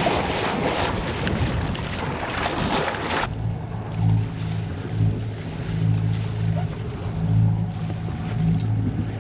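Wind and water rushing past a sailing yacht at sea, cutting off abruptly about three seconds in. A steady low motor hum follows, swelling and fading in a slow regular rhythm.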